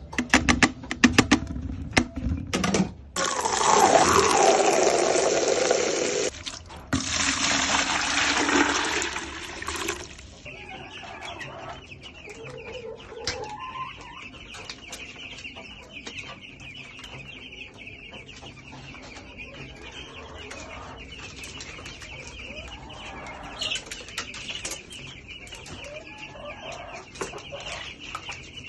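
A flock of young chicks peeping as a steady chorus, after a run of clicks and knocks and two loud rushing noises of about three seconds each in the first ten seconds.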